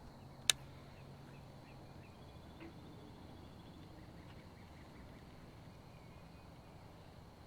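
Quiet outdoor ambience with faint chirping, a faint low hum in the first couple of seconds, and one sharp click about half a second in.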